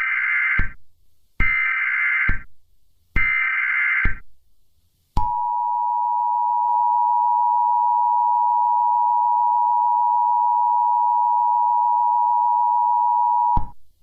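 Emergency Alert System signal: three one-second bursts of digital data tones (the SAME header), then, about five seconds in, the steady two-tone EAS attention signal held for about eight seconds before cutting off. The tones mark the start of a new alert message.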